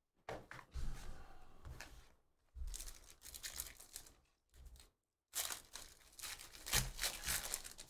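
Foil wrapper of a Panini Phoenix football card pack being torn open and crinkled by hand, in irregular rustling bursts with short pauses. The loudest, densest crackling comes in the last couple of seconds.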